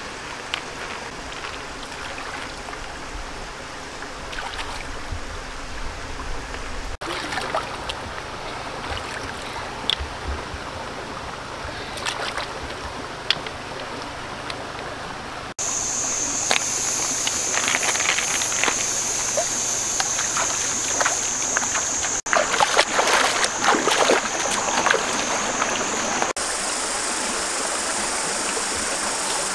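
Shallow stream running over rocks, with scattered splashes and clicks of hands and feet moving in the water and against stones, busiest in the second half. A steady high hiss sits over the water for a stretch in the middle.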